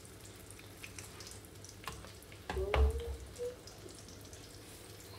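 Egg frying in a pan: a faint steady sizzle with small crackles, and one brief louder knock about two and a half seconds in.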